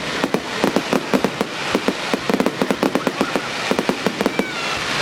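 Fireworks going off in a rapid, continuous string of sharp bangs and crackles, several a second.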